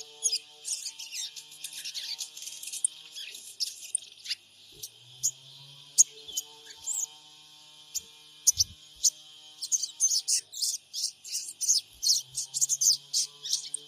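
Sogon songbird calling: quick high-pitched chirps and twitters, scattered at first, then a dense run of rapid calls from about ten seconds in.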